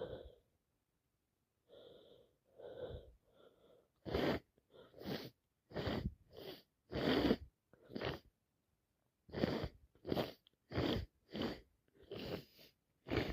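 A woman sneezing over and over, wet and snotty. A few soft, breathy gasping inhales come first, then from about four seconds in a fast run of short sneezes, roughly two a second, broken by one brief pause.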